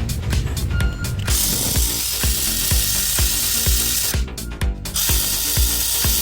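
2017 Ford F-150 3.5 EcoBoost V6 engine rattling on a cold first start, in two loud stretches that start and stop suddenly, under background music with a steady beat.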